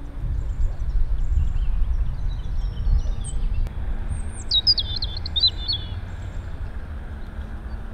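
A small bird calls with faint high chirps, then a quick run of high twittering notes in the middle, over a steady low rumble of wind on the microphone.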